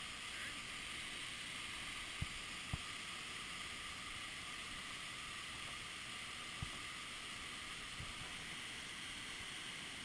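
Steady rush of a waterfall pouring into a pool, with a few brief low knocks, about four in all.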